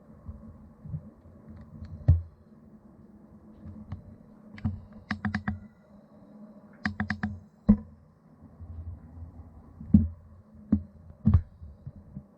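Faint steady hum of a Feiyu G6 gimbal's motors, picked up by the GoPro Hero 7's built-in microphone. Over it come clusters of sharp clicks and taps, several in quick succession, about two, five, seven and ten seconds in.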